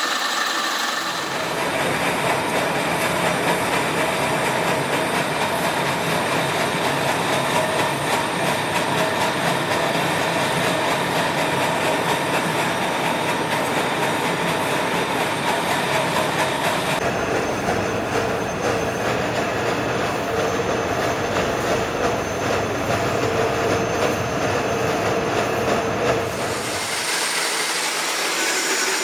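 DIP 500 heavy lathe cutting a large workpiece: a steady loud rumbling, grinding machining noise with some squealing tones, its character changing abruptly about a second in, around seventeen seconds in and near the end.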